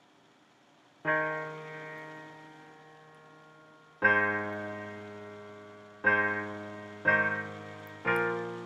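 Finale Notepad's MIDI playback of a choir score in a piano sound at a very slow tempo of 60: a chord about a second in that rings and fades for about three seconds, another about three seconds later, then a chord roughly once a second.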